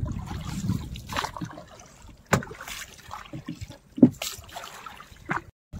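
Oars rowing a small boat, with water splashing and trickling off the blades. A few sharp knocks come through, the loudest about four seconds in.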